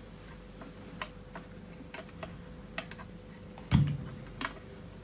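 Light, scattered clicks and taps of a soldering iron tip and solder wire working on the terminals of a COB LED chip in an aluminium floodlight housing, with one louder knock nearly four seconds in, over a faint steady hum.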